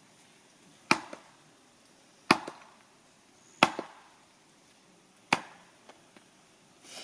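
Firewood being chopped or split: four sharp, separate strikes about one and a half seconds apart, some followed by a lighter knock.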